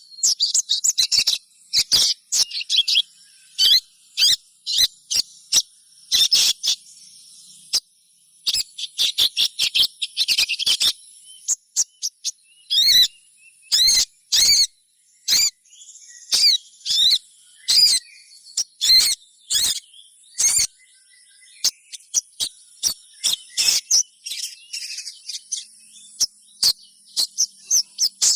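Little spiderhunter (sogon) calling: rapid runs of sharp, high chirps and twitters, some in quick clusters with brief gaps, over a faint steady high whine. This is the female call that keepers play to set other sogon singing.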